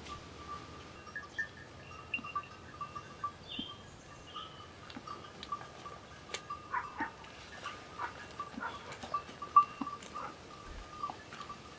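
Small metal bells clinking and ringing irregularly, mixed with many scattered sharp ticks and taps.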